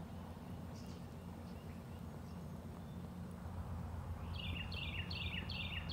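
Wind rumbling low on the microphone. About four seconds in, a songbird starts a quick series of falling chirped notes, about two or three a second.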